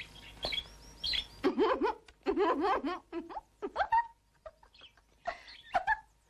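Birds chirping, then a high-pitched, coy giggling voice: a run of quick rising-and-falling notes, with a few short ones near the end.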